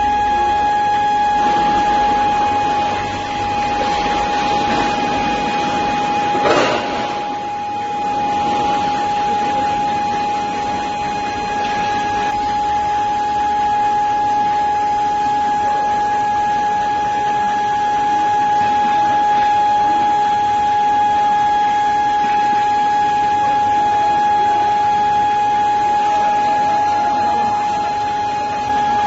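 Induction furnace giving off a steady whine at one fixed pitch over a haze of noise, with a brief sharp crackle about six and a half seconds in.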